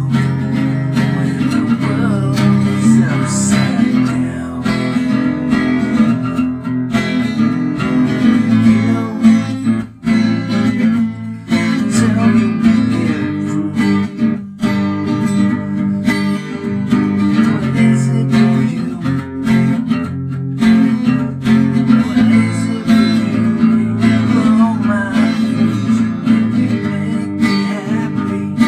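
Strummed acoustic guitar song, with a man singing over it.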